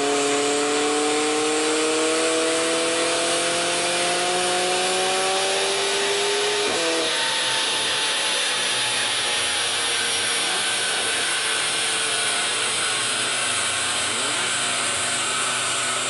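Mercedes-Benz A45 AMG's turbocharged 2.0-litre four-cylinder, fitted with an Armytrix Valvetronic exhaust and a Shiftech tune, making a dyno pull. Its pitch climbs steadily for about seven seconds, then cuts off sharply as the throttle closes, and a loud steady rush of noise carries on after it.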